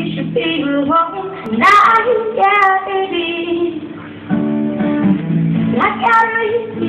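A young woman singing to her own acoustic guitar, the chords held steady under the sung melody.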